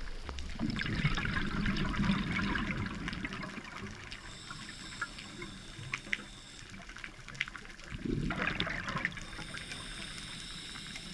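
Exhaust bubbles from a scuba regulator as a diver breathes out: two rushing, gurgling bursts, one starting about a second in and lasting about three seconds, the other about eight seconds in and shorter, with faint scattered clicks between.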